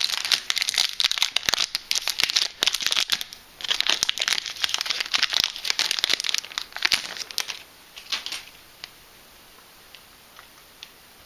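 Foil wrapper of a Yu-Gi-Oh booster pack crinkling and tearing as it is ripped open and handled, in two dense spells with a short break after about three seconds, stopping after about seven and a half seconds. A few light ticks from handling the cards follow.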